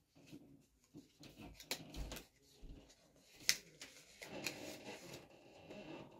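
Hands unwrapping a small wrapped cosmetic item: rustling of the wrapping with scattered light clicks and taps, the sharpest about three and a half seconds in.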